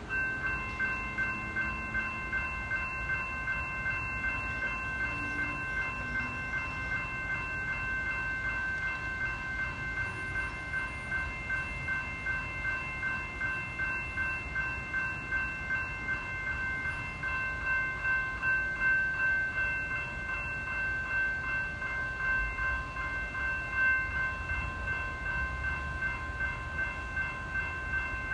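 Railroad crossing warning bell starting up and ringing steadily in rapid, even strokes: the crossing has been activated by an approaching train. A low rumble builds in the second half.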